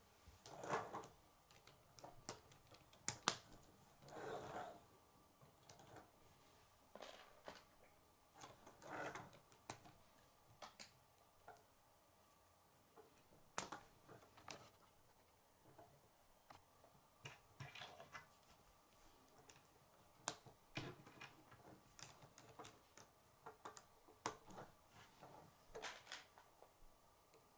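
Faint, scattered plastic clicks and short rustles of K'nex rods and connectors being handled and snapped together on a model.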